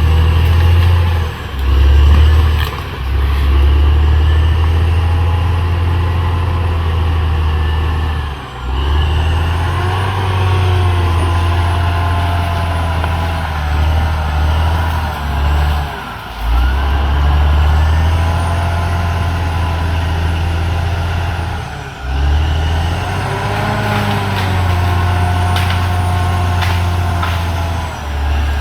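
CAT D6R XL crawler bulldozer's diesel engine running steadily, with wavering high squealing tones over it. The sound cuts off abruptly and restarts a few times.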